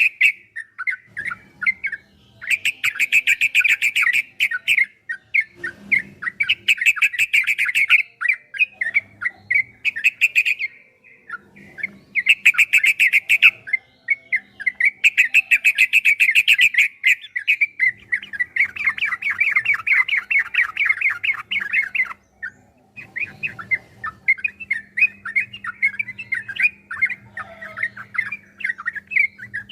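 Yellow-vented bulbul (trucukan) singing long runs of rapid, chattering notes in bursts of a second or two, broken by short pauses.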